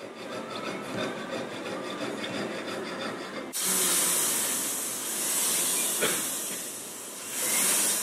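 A jeweler's saw cuts through a small 9k gold screw post in quick, rhythmic strokes. About three and a half seconds in, this gives way suddenly to the high, steady hiss of a rotary handpiece grinding the cut end with an abrasive stone bit, swelling and easing as the bit presses on the metal, with one click midway.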